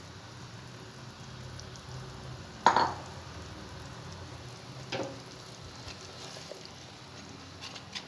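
Spiced water with chicken and freshly added basmati rice boiling in a metal pot, a steady bubbling hiss. A loud metal clank about three seconds in and a softer one about two seconds later.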